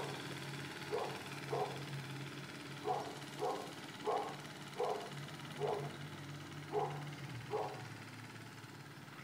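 A dog barking repeatedly, about nine short barks spaced half a second to a second apart, over a faint low hum.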